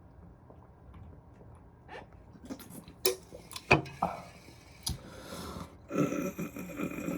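Eating and handling fast-food packaging at close range. Quiet at first, then a few sharp clicks and knocks, a brief rustle, and a longer mouth sound near the end.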